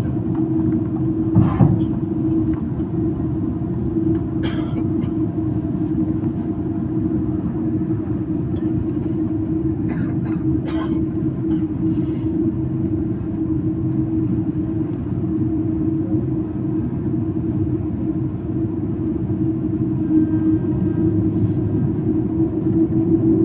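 Cabin sound of an Airbus A330-200 taxiing: the twin jet engines run at low thrust with a steady rumble and a drone, and a few short knocks and rattles from the cabin. The drone grows a little louder near the end.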